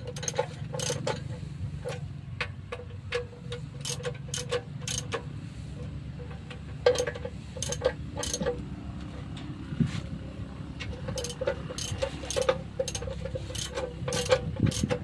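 Old stationary engine running, a steady low hum with sharp irregular clicks and knocks from the machinery.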